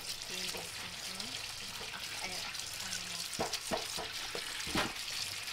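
Tap water running steadily and splashing as peeled vegetable stalks are rinsed by hand in a stainless steel sink. A few knocks of the stalks against the sink come about three and a half seconds in and again near five seconds.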